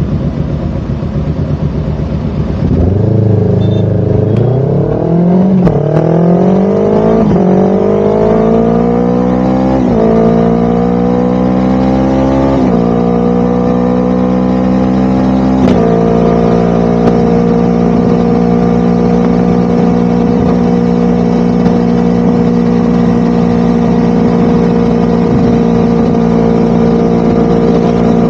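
Motorcycle engine, freshly overhauled, accelerating through the gears: its pitch climbs and drops back at each of several upshifts over the first sixteen seconds or so, then it runs at a steady cruising speed.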